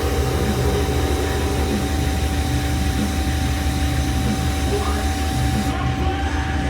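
Steady hiss of a TIG welding arc from a Miller Dynasty 210DX on steel square tubing, cutting off about a second before the end. A song plays underneath.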